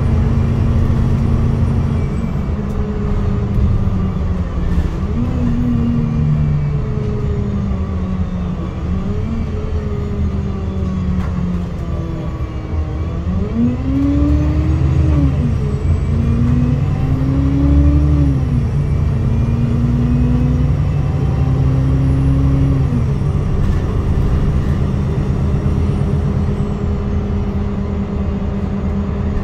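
Cabin sound of an Alexander Dennis Enviro 200MMC single-deck bus on the move: a steady engine drone, and for a stretch in the middle the engine pitch rises and drops several times over as the bus accelerates.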